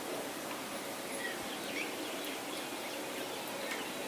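Faint, scattered short chirps of small birds over a steady background hiss.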